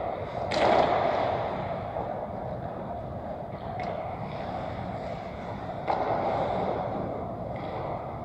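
Indoor ice-rink hockey game ambience: a steady echoing hall din, a loud sharp scrape about half a second in, and two shorter sharp clacks later on.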